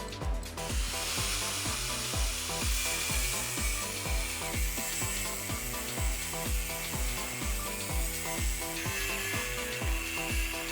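Angle grinder working metal, a steady hiss that starts about half a second in, its pitch shifting a few times, under background music with a steady beat.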